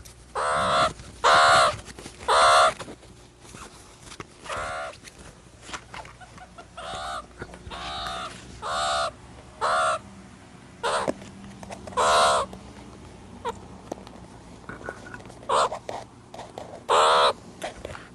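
Meerkats calling: about a dozen short calls, each under half a second, at uneven intervals, some in quick succession, with a wavering pitch.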